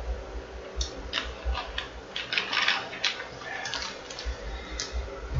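Plastic water bottle handled and squeezed while drinking: a string of irregular sharp crackles and clicks from about a second in until near the end, over a low steady rumble.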